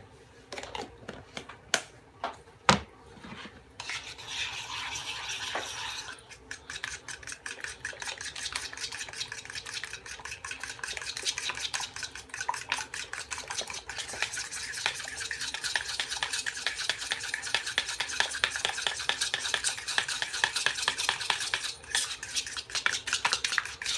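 Egg and mayonnaise batter being beaten in a bowl with a metal utensil. A few separate knocks come first; from about four seconds in, a fast, steady run of clicking strokes against the bowl follows, with a short pause near the end.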